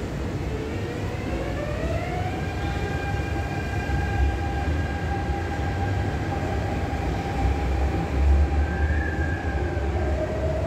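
Adtranz-CAF electric multiple unit metro train pulling away from the platform. Its traction drive gives a whine that rises in pitch as it accelerates during the first two or three seconds and then holds steady, over a low rumble that swells about eight seconds in as the train runs off down the line.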